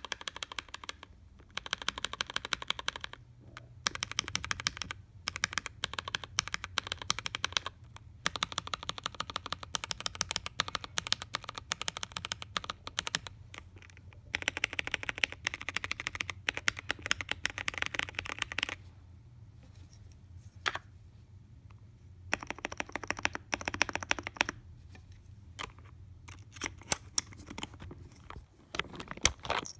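Typing on a mechanical keyboard with plastic keycaps (PBT and ABS): several bursts of rapid keystrokes, each a few seconds long, with short pauses between them and a few scattered single key presses near the end. A faint steady low hum sits underneath.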